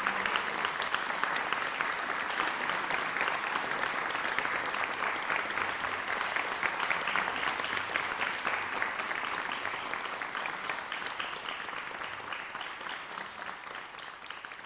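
Audience applauding: dense, steady clapping that slowly dies down over the last few seconds.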